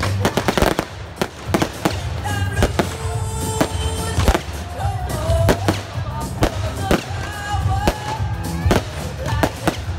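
Fireworks bursting in quick succession, with many sharp bangs and crackles, densest in the first second, over music.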